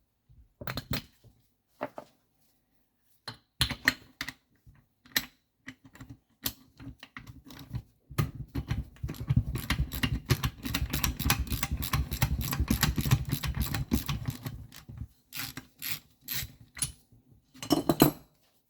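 Hand tools and metal engine parts clicking and clattering during the strip-down of a small Tomos moped engine: scattered clicks at first, then a long run of rapid clicking in the middle, then scattered clicks again.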